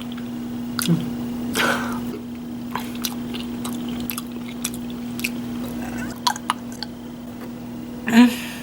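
Wet, squishy chewing and small mouth clicks of someone eating deviled eggs, over a steady low hum. The loudest part is a short, louder mouth noise near the end.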